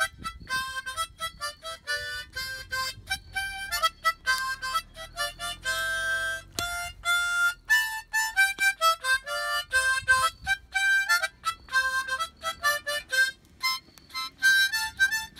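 A harmonica played in a quick run of short notes and chords, with a longer held chord about six seconds in.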